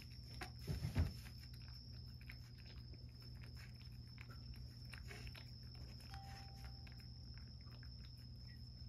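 Domestic cat licking Churu paste from a small dish: soft, quick wet licking clicks throughout, with a few low knocks about a second in.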